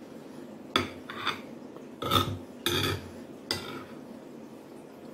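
Metal spoon clinking and scraping against a plate while scooping food, about five short strokes in the first three and a half seconds.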